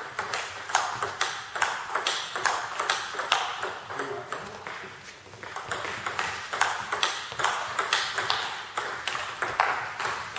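Table tennis rally: the celluloid-type ball clicking sharply off the rubber-faced bats and the table in quick alternation, each click echoing briefly in a sports hall, with a short lull a little before the middle.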